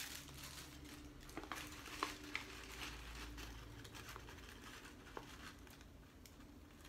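Tissue paper and a small paper gift bag rustling and crinkling faintly as the bag is unpacked, with a few short sharp crinkles.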